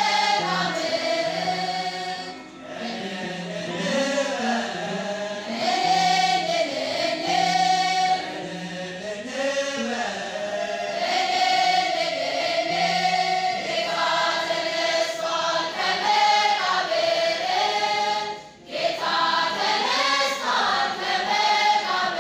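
Women's choir singing an Ethiopian Orthodox Tewahedo mezmur (hymn) together, the melody rising and falling in long phrases, with brief pauses between phrases about two and a half and eighteen and a half seconds in.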